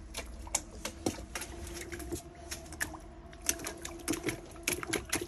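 Newfoundland puppy lapping and splashing water in a stainless steel bowl: a fast, uneven run of wet clicks and slaps.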